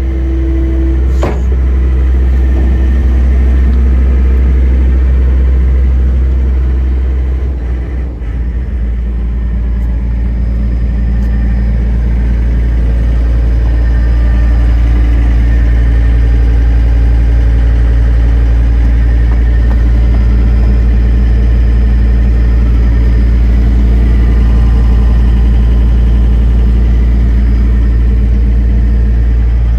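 The 4-cylinder turbo diesel engine of a 2006 John Deere 325 wheeled skid steer, running steadily. A single click comes about a second in. About eight seconds in, the engine note dips briefly, then settles into a steady run at a slightly different speed.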